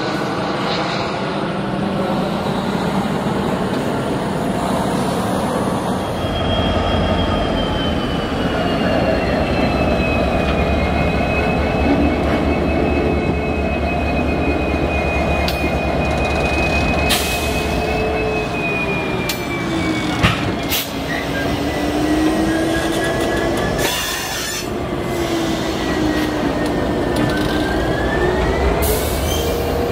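EMD GP60 diesel locomotive rolling slowly past, its two-stroke V16 engine running low and steady. From about six seconds in, wheel flanges squeal on the curved track, the squeal wandering up and down in pitch. There are several sharp knocks in the second half.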